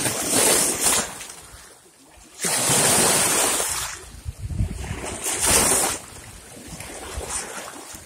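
Small waves splashing and washing over rocks at the water's edge, in three surges of hiss about a second or so long, the middle one the longest.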